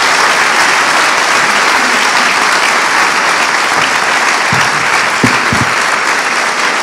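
Audience applauding steadily at the end of a talk. A few low thumps sound about four and a half to five and a half seconds in.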